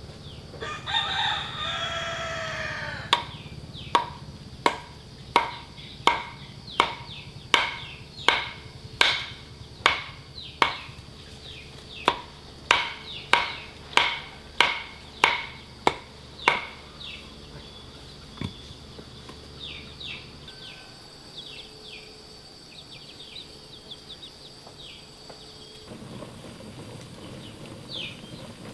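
A rooster crows once near the start, a single drawn-out falling call. Then comes a run of about twenty sharp chopping strikes at a steady pace, roughly three every two seconds, that stops a few seconds past the middle, leaving faint bird chirps.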